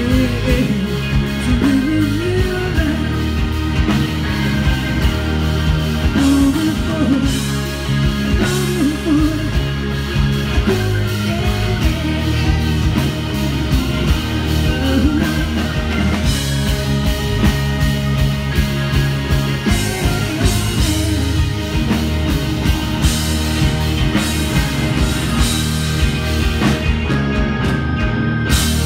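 Live rock band playing at full volume: electric guitars, bass, drums and keyboards, with a lead line that bends and wavers in pitch over a steady low groove.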